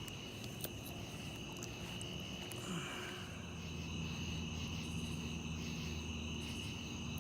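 Night chorus of crickets and other insects, a steady high-pitched trill. A faint low hum joins about three seconds in.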